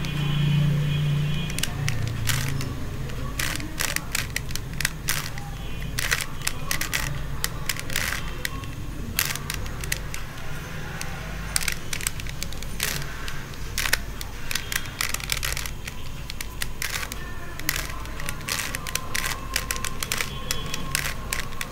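Plastic 3x3 Rubik's cube being turned by hand, its layers clicking and clacking in quick irregular runs, over a steady low hum.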